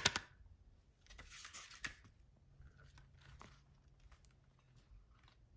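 Pages and cover of a hardcover book rustling and flapping as a capuchin monkey paws it open and leafs through it. There is a sharp knock at the very start, a longer papery rustle about a second in, and a few smaller rustles and taps after.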